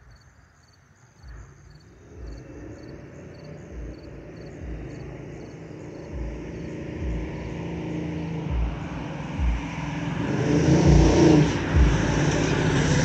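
Airbus A321's twin CFM56 turbofan engines at climb power, the jet noise swelling steadily louder as the airliner climbs toward and over the listener. Low thuds recur about once a second underneath.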